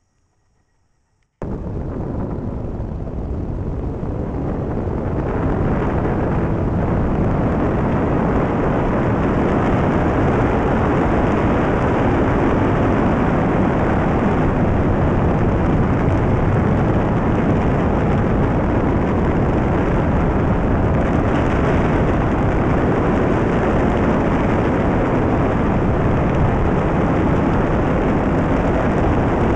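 Loud, steady rumble of wind buffeting the microphone and road noise from a vehicle moving along a dirt road. It starts abruptly about a second in and grows a little louder over the next few seconds before holding steady.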